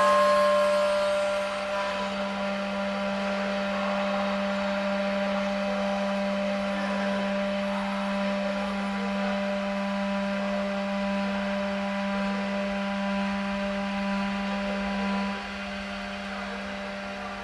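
CNC door lock drilling machine running, its motors giving a steady electric whir and hum. It drops away somewhat near the end.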